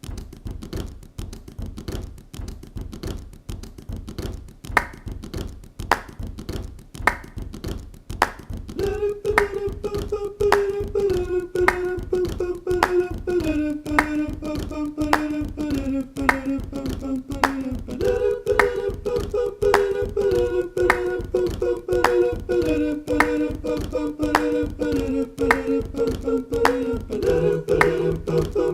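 Background music with a steady beat and sharp clap-like hits, joined about nine seconds in by a held melody that steps from note to note.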